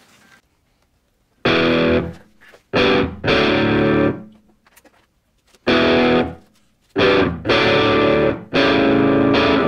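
Background music of a distorted electric guitar playing chords in loud stop-start blocks, broken by short pauses, beginning about a second and a half in.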